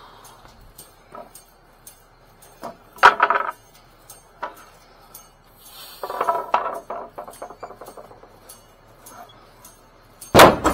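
Sharp metallic clanks and clinks: one ringing clank about three seconds in, a short rattling run around six to seven seconds, and the loudest clank near the end.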